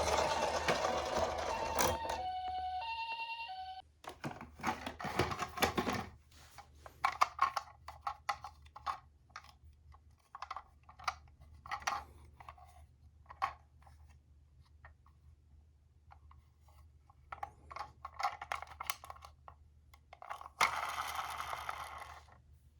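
Toy ambulance minicar's electronic siren sounding a two-tone hi-lo pattern for about two seconds, after a loud rushing noise at the start. Then a long run of scattered clicks and clatters of small toy cars on cardboard, with short bursts of rushing noise around five seconds in and near the end.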